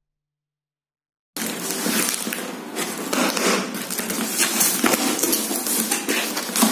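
Silent for about the first second, then a cardboard shipping box being torn open: packing tape ripping and crackling, and the cardboard flaps rustling and scraping under the hands.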